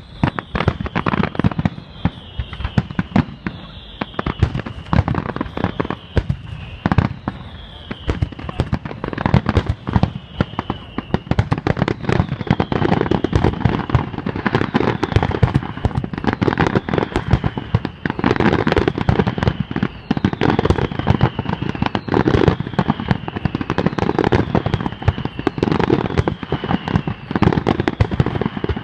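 Fireworks display: a dense barrage of bangs and crackles, growing heavier in the second half, with a series of short whistles that fall slightly in pitch, about one a second.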